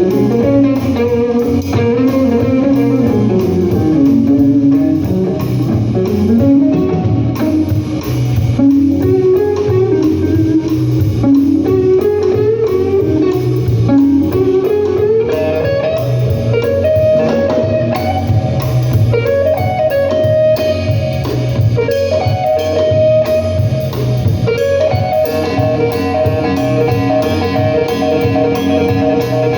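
Live blues guitar playing with no singing: notes sliding and bending up and down, settling into steadier held notes about halfway through, over a low bass part.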